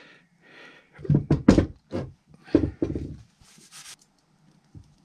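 Several clunks and knocks as the metal gearbox housing of a SPID RAU rotator's worm-drive motor is handled against a wooden workbench, then a short scrape. The motor is not yet running.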